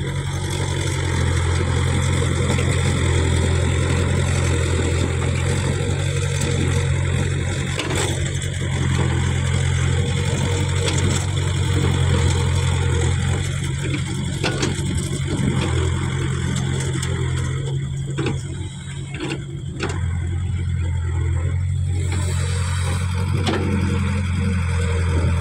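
Caterpillar E70B excavator's diesel engine running steadily as the machine digs mud, with a few sharp knocks. The engine sound dips briefly about three-quarters of the way through.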